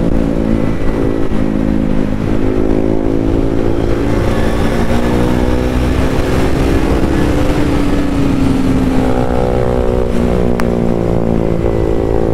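Motorcycle engine running steadily while riding, over a constant rush of road noise. Its pitch dips a little early on, rises gently around the middle, then holds level.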